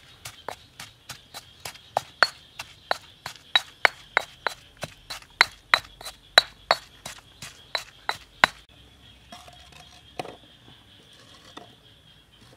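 Stone pestle pounding chilies and garlic in a stone mortar: steady sharp knocks about three a second, stopping about eight and a half seconds in.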